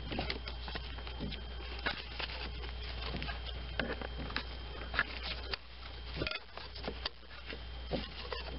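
A long screwdriver prying at a stuck wiring-harness electrical connector to work it loose, making scattered small clicks and scrapes over a low steady hum.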